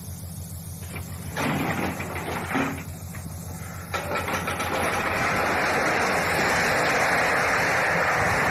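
Diesel locomotive engine running with a steady low rumble while a loaded side-dump railcar tips. From about four seconds in, a loud, steady rushing noise takes over as the car tilts and its load of earth spills out.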